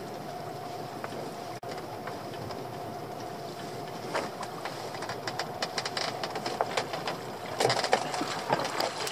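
Small outboard motor idling with a steady hum, while a lobster pot being handled gives scattered clicks and knocks against the boat, busiest near the end.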